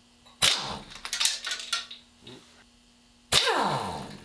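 Impact wrench hammering in two short bursts, about half a second in and near the end, each ending in a falling whine as the tool spins down, with a few metal clinks between them: torque converter bolts being spun off the flexplate.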